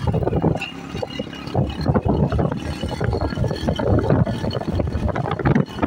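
Wind buffeting the microphone in uneven gusts over a low rumble.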